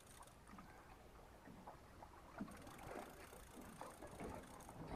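Near silence on a small boat at sea: faint water sloshing against the hull, with a few soft irregular knocks.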